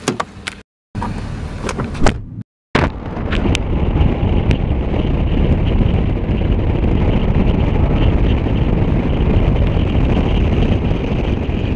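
A car driving, heard from inside: steady road and wind noise. It is preceded in the first couple of seconds by a few brief clicks and knocks with short gaps between them.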